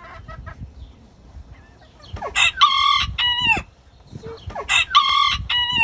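A rooster crows twice, each crow lasting about a second and a half. There are a few short clucks just before.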